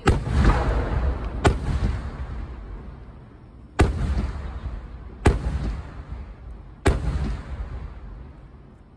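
Large aerial firework shells bursting overhead: five sharp booms a second or two apart, each followed by a rolling rumble that dies away.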